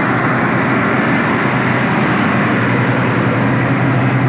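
Combine harvester running steadily, a constant engine drone with machinery noise and no change in speed.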